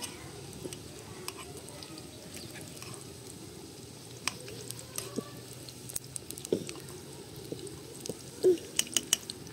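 Sliced food frying in oil in a pot over an open wood fire, a steady sizzle with scattered sharp clicks and taps as it is stirred, and several louder taps near the end.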